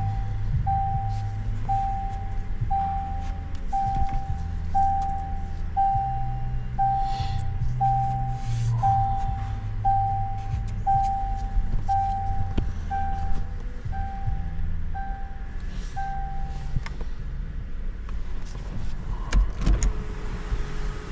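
Electronic beeping: one steady tone repeating about once a second, stopping about three-quarters of the way through, over a low rumbling hum. A click comes near the end, followed by a steady lower tone.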